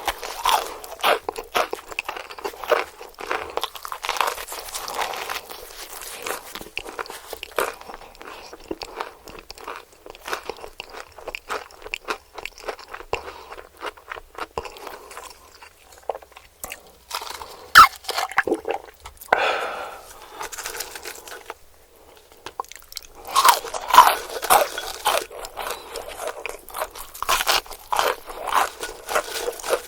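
Close-miked chewing and crunching of crispy KFC fried chicken breading, a steady run of wet crackly bites. There is one sharp loud crunch about 18 seconds in, a brief lull a few seconds later, then a dense run of loud crunches.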